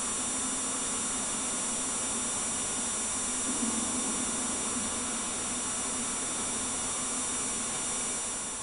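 Steady hiss with a low hum and faint high-pitched whining tones, unchanging throughout, with no distinct sound event.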